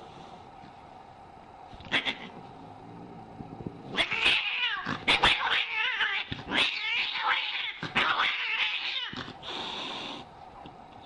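Angry domestic cat yowling, with a short call about two seconds in and then about five seconds of loud, wavering caterwauling. It ends with a hiss of about a second.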